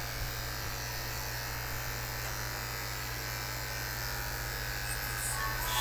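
Corded electric pet clippers running with a steady, continuous buzz while shaving a dog's matted coat.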